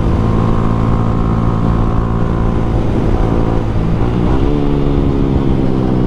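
Yamaha Sniper 155R single-cylinder engine running through an Akrapovic M1 exhaust at steady revs. About four seconds in, the revs rise and then hold at a higher pitch.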